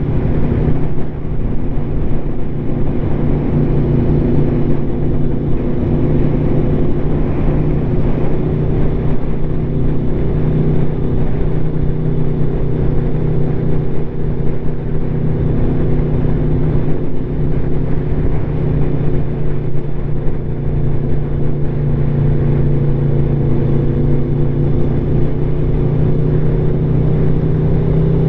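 Aprilia Tuono V4 motorcycle engine running at a steady cruise through an SC Project SC1-R slip-on exhaust, its pitch holding nearly constant, over a continuous rush of wind.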